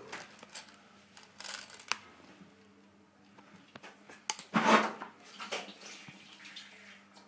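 Handling noise in a small bathroom: scattered clicks and rustles as a rifle and phone are moved about, with a sharp click about two seconds in and a louder rustle about four and a half seconds in, over a faint steady hum.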